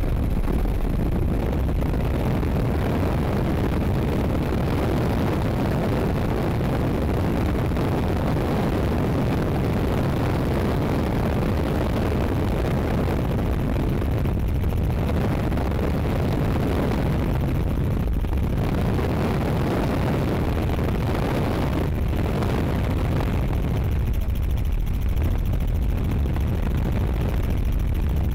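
Helicopter in flight: a steady rush of engine and rotor noise mixed with wind on the microphone, heaviest in the low range and unchanging in level.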